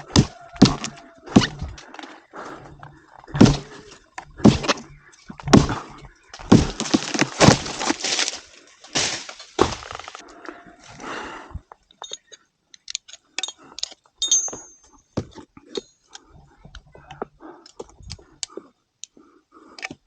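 Palm wood being cut and breaking: irregular sharp knocks and cracks, thickest in the first half, then fewer, lighter ticks.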